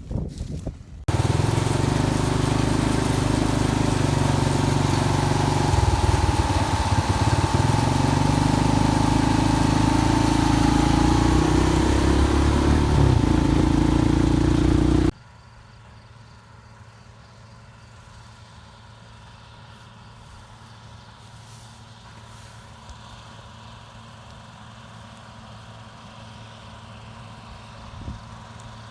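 Heavy farm machine's engine running loud and close with a broad rushing noise over it. About halfway through, the sound cuts off suddenly to a much quieter, steady engine hum.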